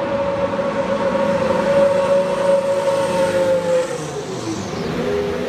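A 2017 Formula 1 car's 1.6-litre turbocharged V6 driving along the pit lane at a steady engine pitch. The pitch drops as the car passes, about four seconds in.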